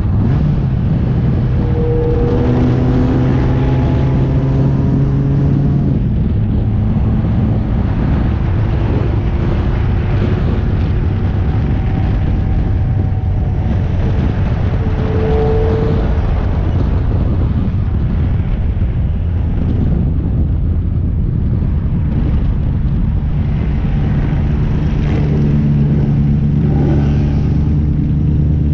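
Open-cockpit vintage race car's engine running at moderate revs as the car slows from about 55 to 20 mph, heard from the cockpit with steady wind and road noise. The engine note drops about six seconds in and rises again near the end.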